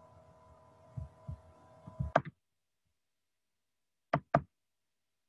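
A faint steady electrical hum with a few low knocks on the desk, cut off about two seconds in; then, about four seconds in, two sharp clicks a fraction of a second apart, a computer mouse double-click.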